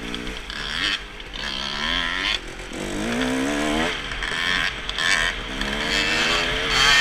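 Dirt bike engine under way, revving up three times and dropping back between, with wind rushing over the microphone.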